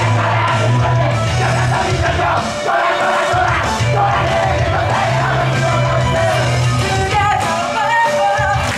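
Idol group singing into handheld microphones over a loud, up-tempo rock-style backing track with heavy bass and drums, played through a stage PA.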